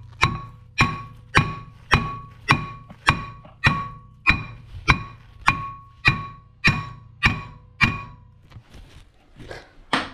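Hammer blows on a steel brake disc, about fourteen strikes in a steady rhythm of nearly two a second, each ringing briefly, then a few lighter knocks and one harder knock near the end. The disc is being knocked loose from the hub.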